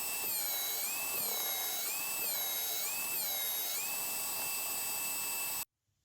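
Electric power tool motor running with a high whine; its pitch sags and recovers about once a second as it is loaded, then the sound cuts off abruptly near the end.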